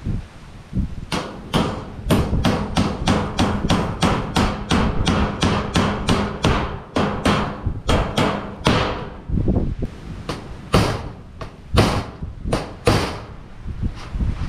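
Hammer driving nails, likely into corrugated tin wall sheeting, with quick blows at about three a second. Near the end it slows to a few spaced, harder strikes.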